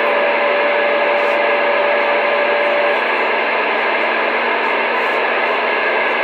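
Two-way radio receiver putting out steady static while an incoming signal holds the S-meter at about S3. A steady whistle tone sits over the static until about halfway through, with a fainter low hum throughout.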